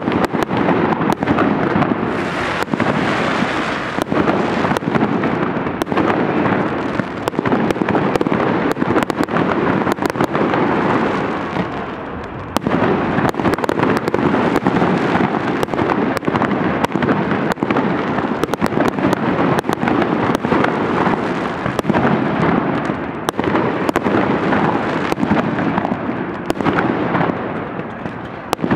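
Fireworks display: shells bursting one on top of another in a dense, continuous run of bangs and crackling, easing briefly about twelve seconds in and again near the end.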